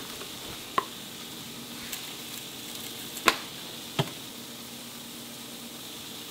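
Meat frying in a nonstick pan: a steady sizzling hiss, with three sharp pops, about a second in and again around three and four seconds.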